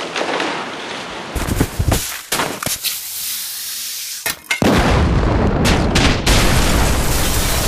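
Gunfire and explosion sound effects: a few sharp shots in quick succession, then about four and a half seconds in a loud, sustained blast rumble with more shots cracking through it.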